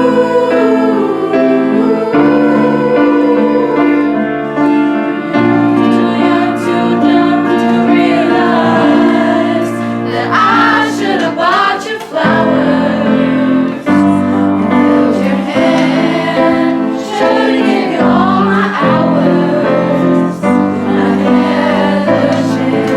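Music: a choir of voices singing with piano accompaniment, in held chords.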